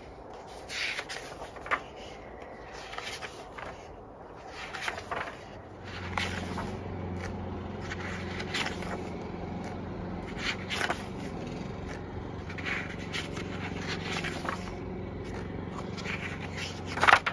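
Paper pages of a sketchbook journal being turned and smoothed by hand: repeated short scrapes and rustles, the loudest just before the end. A low steady hum comes in about six seconds in.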